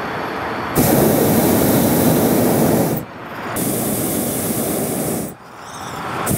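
Hot air balloon's propane burner firing in blasts: a loud rushing hiss comes on suddenly about a second in and cuts off sharply about two seconds later. It fires again shortly after, cuts off once more near the end and comes back on.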